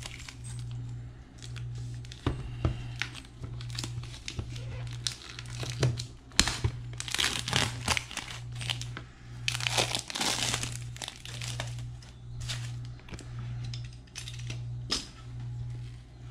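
Plastic shrink-wrap crinkling and tearing in irregular bursts as it is peeled by hand off a DVD box set, with a steady low hum underneath.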